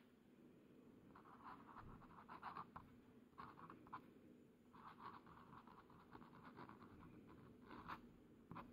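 Faint scratching of a glass dip pen nib on a paper card as a few words are written, in several short spells of strokes with brief pauses between them.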